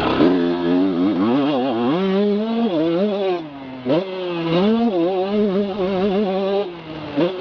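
Motocross bike engine heard close up from the rider's own machine, revving hard and easing off over and over. Its pitch climbs and drops again and again, with brief dips in between, as the throttle is worked.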